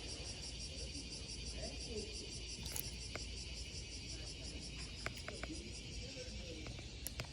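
Insects chirping steadily in a fast, even pulse, with a few sharp clicks about halfway through and again near the end.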